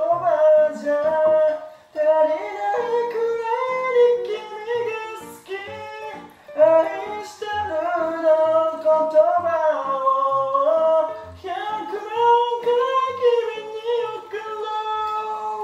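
A man singing a drawn-out, high-pitched melody with long held notes and glides, his voice echoing in a small bathroom. A soft low beat runs under the voice.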